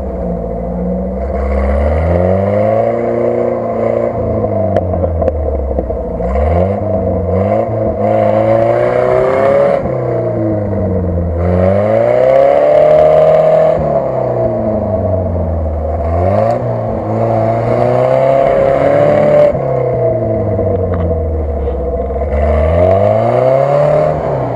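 UAZ-469 off-roader's engine revving up and falling back about five times as it works through deep mud ruts. Each rise in revs comes with a rush of tyres spinning and churning mud.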